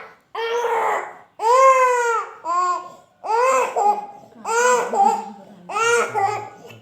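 Baby crying in a string of six high-pitched wails, each under a second long and rising then falling in pitch, with short breaths between them.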